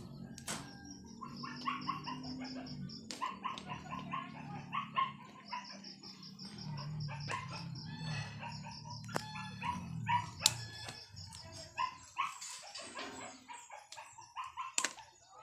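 Native pigs calling in short, irregular bursts over a low rumbling grunt, with scattered sharp clicks and knocks.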